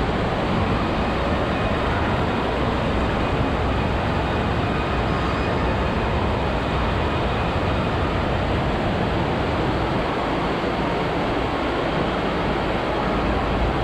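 Steady rushing of water flowing through the start channel of an indoor water slide.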